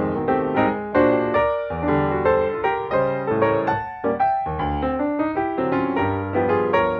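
Background music: a piano playing a steady run of struck notes.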